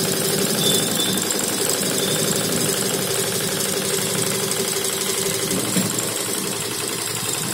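Computerized 12-needle embroidery machine (HSW Kartoos) running and stitching, a fast, even mechanical clatter of the needle bar going up and down, over a steady hum.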